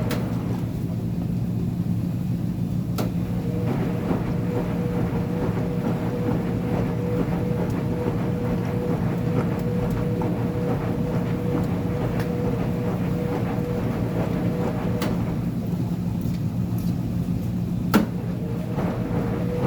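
Uni-Mac UniMat 35 commercial front-load washer running with a steady motor hum and a whine that fades out and comes back, with a few sharp clicks, the loudest near the end.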